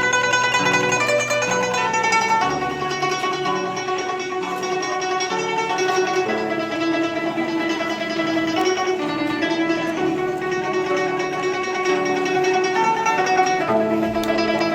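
Guzheng (Chinese zither) playing a plucked melody over sustained lower notes.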